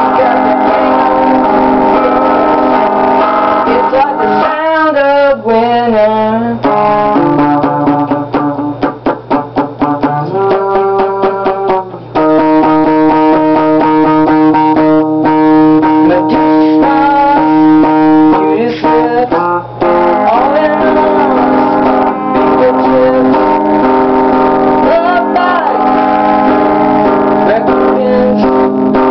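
Rock song playing in an instrumental stretch without lyrics, led by guitar. The lead wavers in pitch about four seconds in, then a run of fast repeated notes follows.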